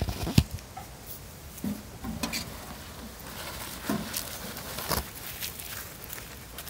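Phone set down on dry leaf litter with a sharp knock, then scattered light footsteps and rustling in the dry leaves as a barefoot person and a dog walk close by.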